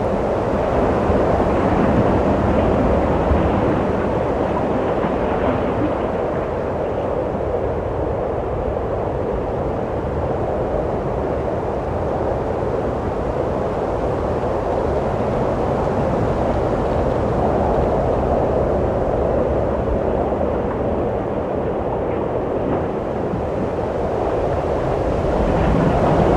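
Wind blowing steadily, a deep continuous rush that swells and eases slowly.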